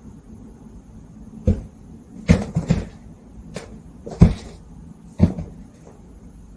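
Ragdoll cat at laser-pointer hunting play: a string of short, irregular thumps and knocks, about eight in all, with a quick cluster a little past two seconds in and the loudest knock near the middle.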